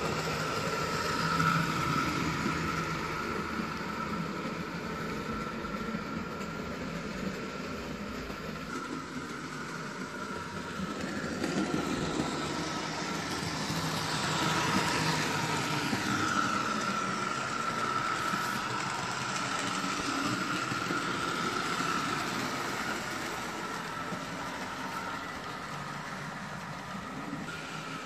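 Hornby OO gauge model A4 Pacific locomotive running with its coaches: a steady high electric-motor whine over the rumble of wheels on the track, growing louder as the train passes close by about a second in and again from about halfway through.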